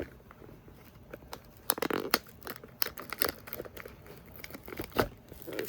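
Crinkling and tearing of a thin plastic wrapper handled and opened by hand: an irregular run of sharp crackles, with a louder snap about five seconds in.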